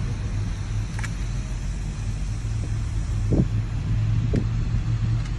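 Car engine running with a steady low hum, under an even hiss.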